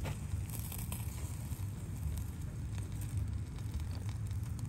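Wood fire crackling in a small gasifier camp stove with a burger patty cooking on its wire grill: scattered faint pops and ticks over a low steady rumble.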